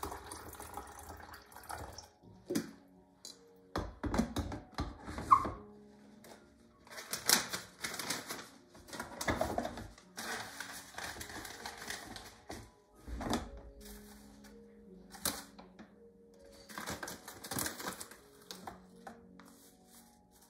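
Plastic clicks and clatter from a Philips drip coffee maker's hinged lid and glass carafe being handled, the rustle of a paper filter going into the basket, and ground coffee being spooned in, in irregular bursts with one sharp click about five seconds in. Soft background music plays underneath.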